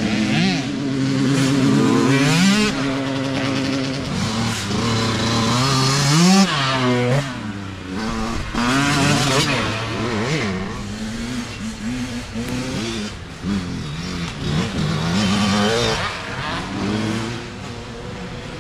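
Small youth dirt bike engines revving up and down as the riders work the throttle along the trail, with more than one engine heard at once. A sharp rev rises about six seconds in.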